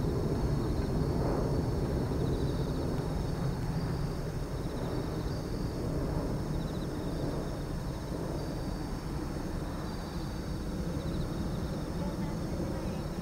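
Distant Boeing 747-400 airliner on final approach, its four jet engines heard from the ground as a steady low drone that fades a little.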